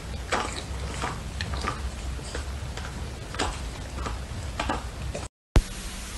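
Irregular light clicks and ticks over a low steady hum, broken by a moment of dead silence near the end.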